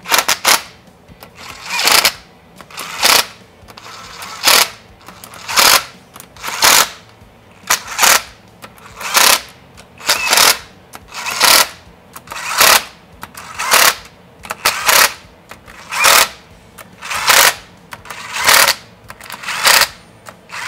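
Cordless power driver spinning in short bursts, about one a second, running the cam cap bolts down snug on a Kawasaki jet ski engine's cylinder head.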